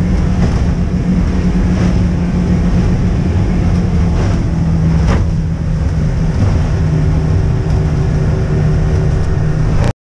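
Yamaha outboard motor running steadily under way at cruising speed, heard from inside the boat's wheelhouse. It cuts off suddenly near the end.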